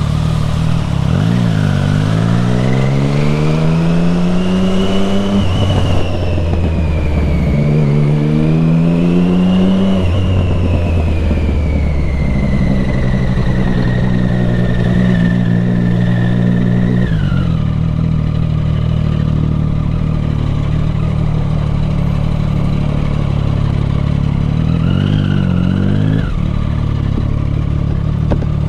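Triumph Street Triple 675R's 675 cc inline-three engine accelerating: the revs climb twice in the first ten seconds, each climb cut short by a gear change. It then holds steady, drops to lower revs at about seventeen seconds, and gets a short blip of throttle near the end.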